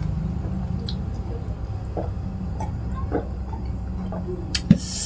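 Quiet eating and drinking mouth sounds, sipping from a mug then chewing, over a steady low hum. A sharp click comes near the end, followed by a short hiss.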